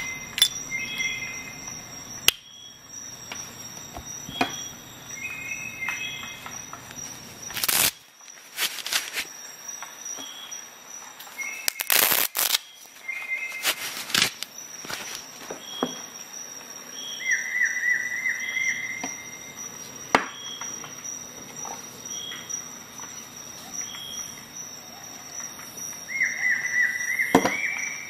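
Metal clicks and snaps of a Victorinox Rescue Tool's folding implements being worked open and shut, with a few sharp louder snaps as parts lock or spring closed. Short squeaky metal-on-metal passages twice, about two thirds of the way through and near the end, over a steady faint high whine.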